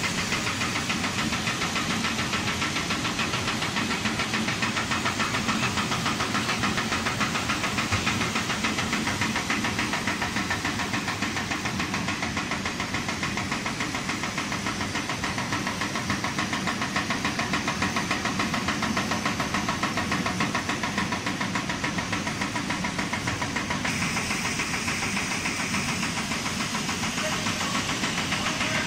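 Snack food extrusion line running: the extruder, cutter and conveyors make a steady mechanical din with a fast, even rattle.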